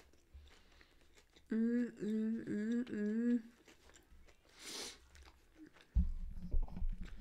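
A woman hums 'mm-mm' through a mouthful of food, four short hums in a row. About six seconds in comes a close-miked bite into a chicken club sandwich, followed by chewing.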